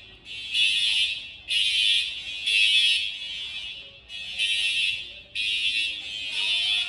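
School fire alarm horns sounding the evacuation signal: harsh, high blasts in groups of three, each about a second long, then a pause of about a second before the next three.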